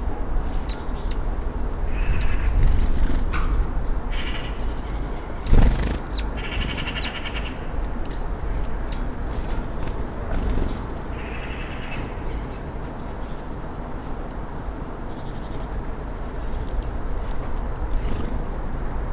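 Small birds chirping, with short high calls scattered throughout and several rattling call phrases lasting about a second each, over a steady low rumble. A single sharp knock sounds about five and a half seconds in.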